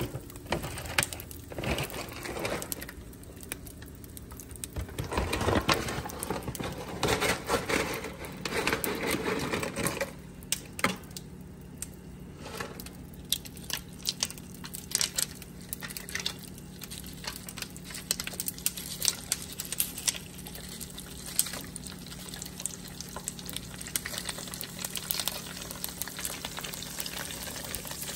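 Dried pork skin pellets frying in hot oil, with irregular crackling and popping as they puff up, over a steady low hum. Louder irregular knocks and rustles come first, for about the first ten seconds.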